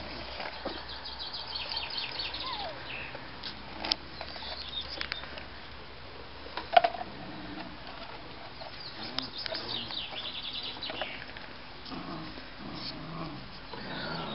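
Puppies playing around an empty plastic jug on concrete, with a couple of sharp knocks about four and seven seconds in. Small birds trill in the background.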